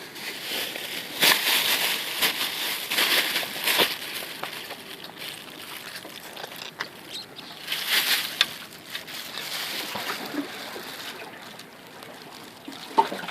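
Water splashing and sloshing in irregular bursts, heaviest from about one to four seconds in and again around eight seconds.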